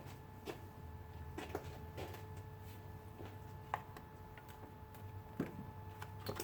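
Irregular light clicks and knocks of hand tools at work on the engine while spark plugs are being pulled out, over a steady electrical hum.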